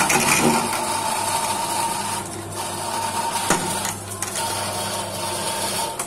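A 5 kg potato peeling machine running with a steady mechanical hum, a held tone and a hiss. A single knock about three and a half seconds in.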